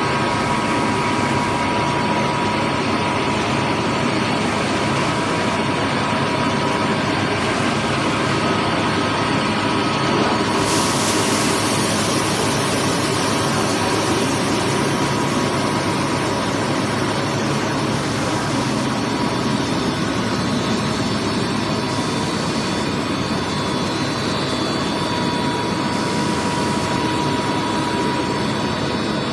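Steady, loud running noise of an HDPE/PP thick-board extrusion line's machinery (motors, blowers and extruder), with a thin steady tone in it. There is a short rise in hiss about eleven seconds in.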